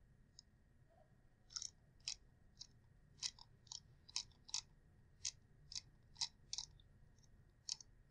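Faint, sharp clicks from a computer mouse as pages are scrolled, about two a second at uneven intervals, starting about a second and a half in.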